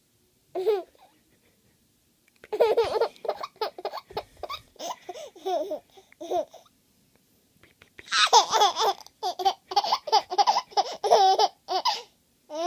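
A baby laughing in bouts of quick, pitched pulses: a short burst about half a second in, a longer bout that follows, then a louder run of laughs near the end.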